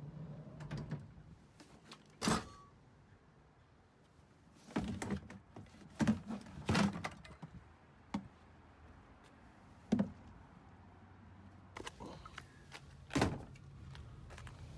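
Sharp clunks and thuds, about seven of them, from gear such as a plastic fuel can being handled and moved about at a vehicle's open doorway, over a faint steady low hum.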